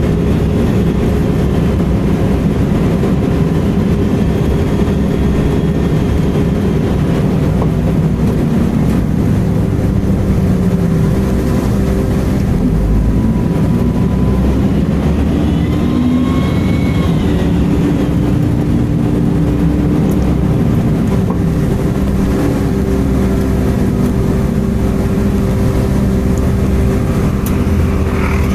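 Volvo B10M bus engine and drivetrain running steadily under way. A faint high screech rises and falls at times, most clearly about two thirds of the way in.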